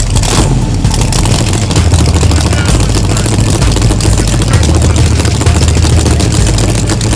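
Drag racing car engines idling loudly with a low rumble, the low note shifting a few times.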